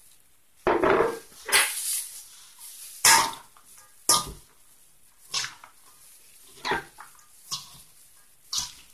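Shredded raw vegetables being tossed by a hand in a plastic glove in a stainless steel bowl: rustling, crunching strokes of the shreds and glove against the metal, about eight uneven pushes.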